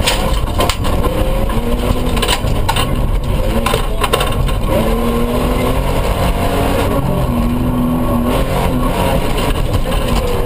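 Toyota pickup rally truck's engine running hard, heard from inside the cab on a gravel stage, its revs rising and falling. Sharp knocks from the rough road and stones come through the body.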